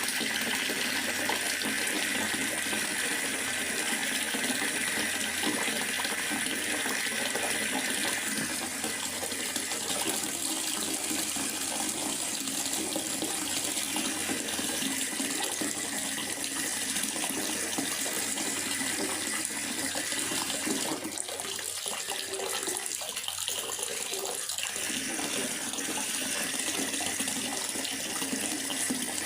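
Steady rain falling in a forest, a continuous even hiss of water.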